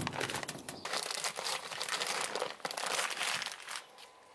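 Clear plastic bag crinkling and rustling as a wheel hub assembly is unwrapped from it by hand; the crinkling stops a little before the end.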